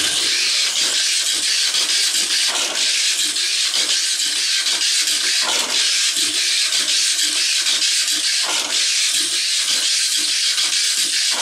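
Mini 4WD-style car with a brushless motor running laps on a plastic three-lane track: a loud, steady high whir of motor and wheels on the track, rising to a louder surge about every three seconds, once per lap.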